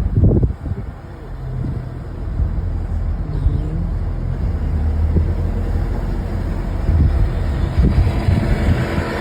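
Motor vehicle engine running steadily, a low hum, with gusts of wind rumbling on the microphone.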